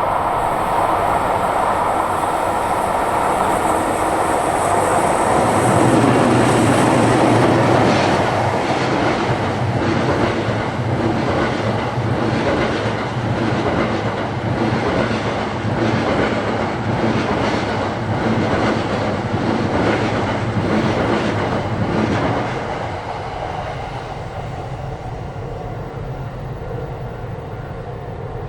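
A train double-headed by EF64 and EF81 electric locomotives passing. The sound is loudest as the locomotives go by about six seconds in. Then the coaches' wheels clatter over the rail joints in a steady rhythm, and the sound drops away about 22 seconds in as the end of the train passes.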